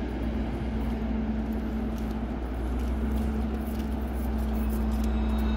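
DR1A diesel multiple unit's diesel engine idling while the train stands at the platform, a steady low drone with a constant hum.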